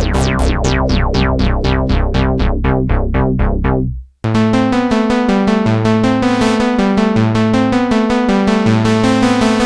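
Sequential Prophet X synthesizer playing sequenced patterns. A pulsing patch repeats notes about four times a second while its brightness closes down steadily. It cuts off briefly about four seconds in, and a new sequenced patch starts over a stepping bass line.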